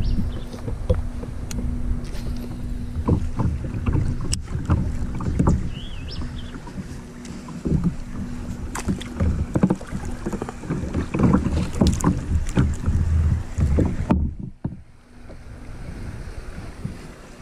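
Wind buffeting the microphone and water slapping against an inflatable kayak drifting on a river, a loud uneven low rumble with frequent small knocks. About fourteen seconds in the buffeting drops away suddenly, leaving the softer rush of the current.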